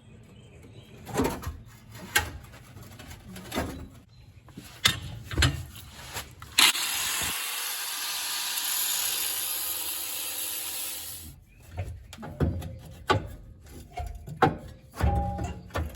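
Scattered metal knocks and clatter of hand work on the old exhaust hangers and pipes under the Jeep. Partway through comes a steady hiss lasting about five seconds, then the knocking resumes.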